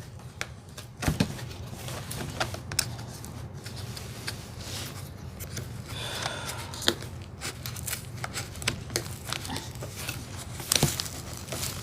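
A cardboard box being forced open by hand: scattered sharp clicks, scrapes and rustling of cardboard and packaging being pulled and torn.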